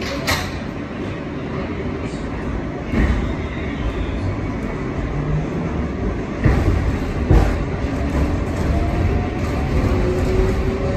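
R142A subway car heard from inside while running between stations: a steady rumble of wheels on rail, broken by several sharp knocks of wheels passing rail joints. A faint whine rises in pitch near the end.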